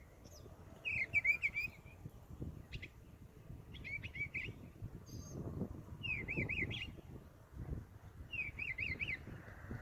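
A songbird singing four short phrases of quick up-and-down notes, a couple of seconds apart, over a low rumble.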